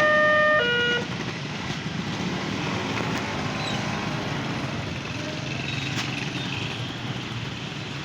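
Railway level crossing's electronic warning siren sounding a two-tone hi-lo alternation, cutting off about a second in, followed by steady road traffic noise.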